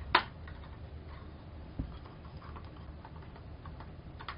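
Handling noise from assembling an 18-inch ring light onto its stand: three sharp clicks of the plastic ring and mount, the first, just after the start, the loudest, with faint rustling and knocking between.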